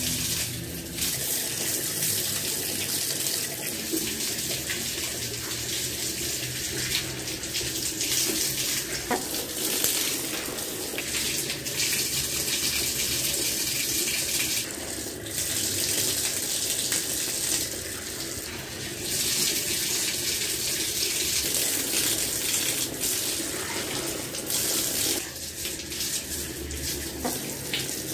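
Water running from a wall tap and splashing onto hands and a metal drain grate during washing. The splash shifts and dips now and then as hands, arms and face move in and out of the stream.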